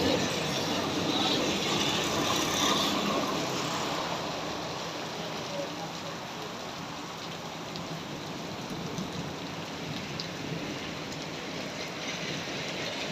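Heavy rain pouring down onto a flooded road, a steady hiss of rain on water, louder in the first few seconds as a motorbike passes on the wet road.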